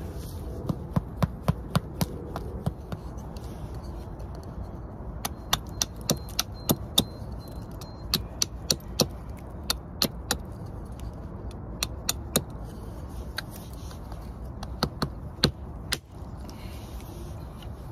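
Irregular sharp knocks and clicks, a few a second, in clusters with short pauses between, over a steady low rumble.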